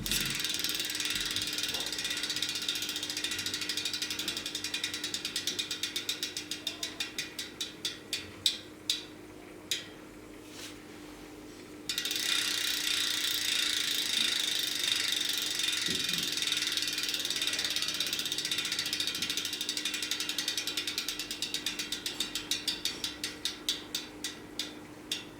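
Kasper Pro bicycle hub freewheeling in a spun 29-inch wheel: a rapid buzz of freehub clicks that slows to separate ticks as the wheel coasts down and stops about ten seconds in. The wheel is spun again about twelve seconds in and the clicking again starts fast and slows to single ticks near the end.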